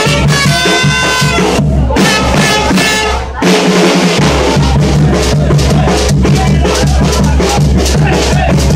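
Upbeat Latin dance music driven by a drum kit, with the bass dropping out briefly about three and a half seconds in.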